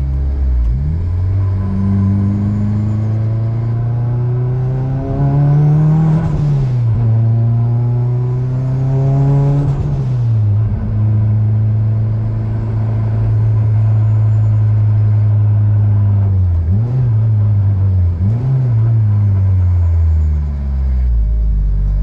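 Big-turbo Mazdaspeed6's 2.3-litre turbocharged four-cylinder, heard from inside the cabin, pulls hard twice. The revs climb with a high turbo whistle rising alongside, and each pull drops off sharply at the let-off or shift. It then runs steadily at cruise, with two quick revs near the end.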